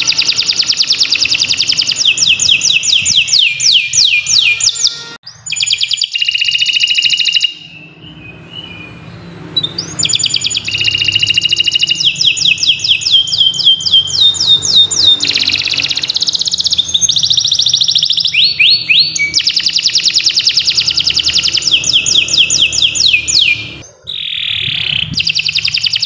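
Domestic canary singing a long, loud song of rapid trills, each a fast run of repeated notes, one roll after another with only a few brief breaks.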